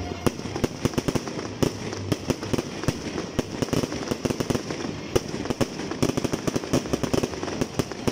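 Fireworks going off in quick, irregular succession: sharp bangs and crackling pops, several a second, with no pause.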